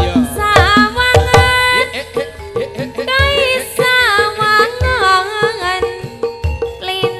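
Live Javanese gamelan music: sharp, irregular hand-drum strokes of the kendang under a steady pitched accompaniment and a melodic line that bends up and down.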